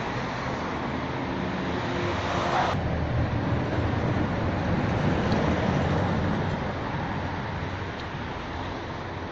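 Street traffic noise: a steady hiss of road traffic, cut off abruptly about three seconds in. A vehicle's low rumble then swells and fades in the middle.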